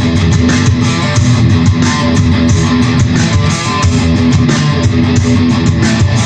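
Loud rock music played by a band at a sound check: strummed electric guitar over bass, with a steady beat.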